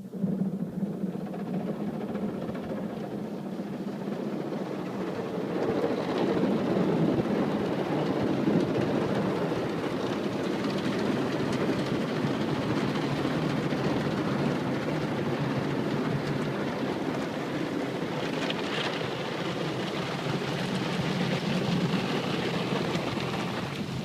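Automatic car wash machine running: a steady mechanical hum with a continuous rushing noise over it.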